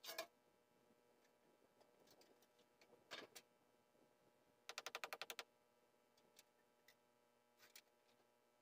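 Near silence broken by a few faint clicks and knocks, with a quick, even run of about ten clicks around the middle.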